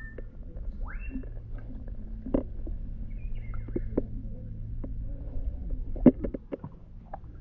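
Water sloshing and lapping against a camera held at the surface of a pool: a low rumble with irregular knocks, the sharpest about six seconds in.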